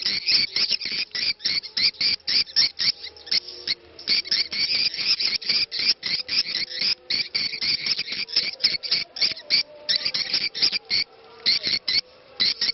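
Swiftlet 'ceklok' lure call: rapid, dry chirping clicks of edible-nest swiftlets, about six a second, broken by a few short pauses.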